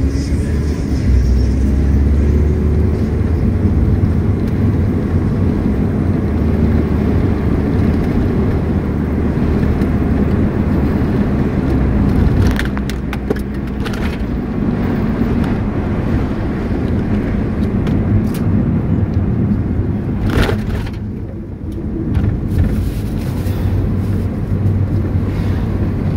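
Car in motion heard from inside the cabin: a steady low rumble of engine and road noise, with a few short clicks a little past halfway and once more later.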